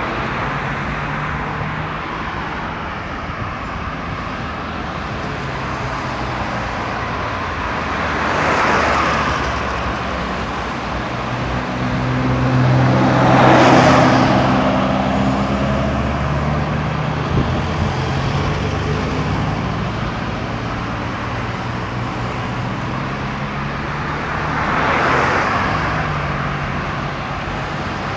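Highway traffic: a continuous roar of engines and tyres, with three vehicles passing close. The loudest pass, about halfway through, carries a low engine hum.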